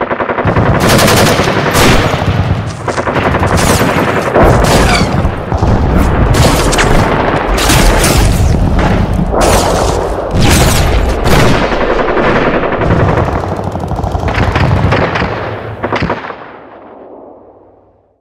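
Long, loud stretch of rapid machine-gun-like firing, dense rattling hits one after another, fading out over the last couple of seconds.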